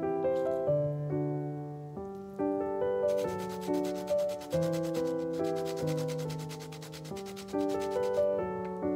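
Lemon rind grated on a small flat metal grater: quick rasping strokes start about three seconds in and stop near the end, over gentle background piano music.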